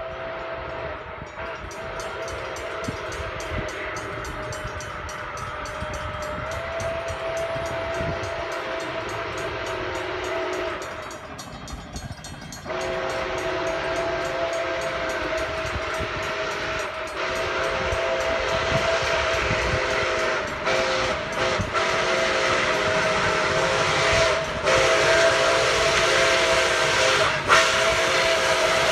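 Nickel Plate Road 765's chime steam whistle sounding long, held blasts as the 2-8-4 Berkshire steam locomotive approaches. There is one gap about a dozen seconds in and several short breaks in the last ten seconds. The noise of the oncoming train grows louder toward the end.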